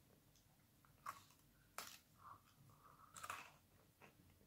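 Faint crunching and chewing of a crisp Lotus caramelised biscuit, with a few separate crunches: a sharp one about two seconds in and a cluster a little after three seconds.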